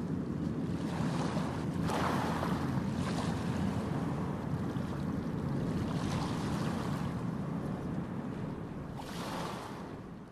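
Choppy sea water splashing and washing, with wind on the microphone, over a steady low rumble; louder splashes come about two, six and nine seconds in, and the sound fades out at the end.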